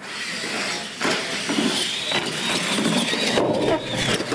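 Radio-controlled monster trucks launching at full throttle on a concrete floor: motor whine and tyre noise, with a high whine that holds from about two seconds in.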